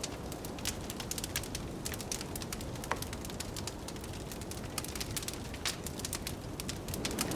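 Wood fire crackling in a fireplace, with frequent sharp pops and snaps over a steady low rush of blizzard wind. The wind swells slightly near the end.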